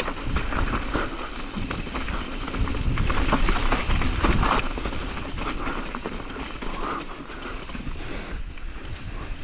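Knobby tyres of a Specialized Kenevo SL e-mountain bike crunching and chattering over loose gravel and sharp rock on a rough, fast descent: a dense, uneven crackle of small impacts over a low rumble.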